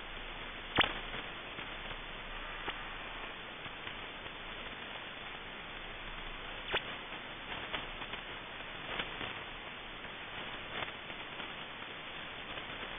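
Shortwave radio receiver hiss on 5000 kHz, with irregular sharp clicks, the loudest about a second in.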